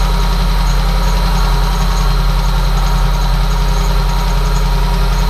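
VAZ 2109 four-cylinder engine idling steadily with a deep, bassy drone, running slightly unevenly; the owners take a noise from it for worn alternator bearings.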